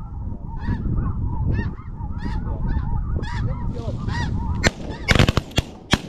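Snow geese honking, many short high calls overlapping, then about five seconds in a quick volley of six or so shotgun blasts in just over a second as the hunters open fire on the geese.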